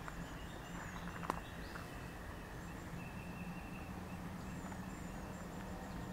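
Songbirds chirping, with short high whistled notes and quick falling chirps, over a steady low hum. A single footstep crunches on a gravel path about a second in.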